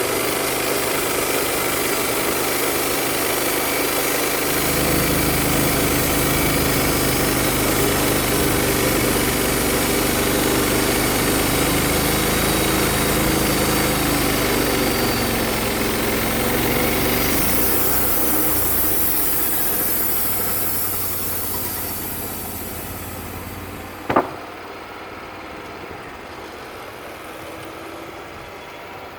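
Wood-Mizer LT35 portable band sawmill running hard. Its engine and blade noise eases off toward idle about three-quarters of the way through, and a single sharp clank comes shortly after.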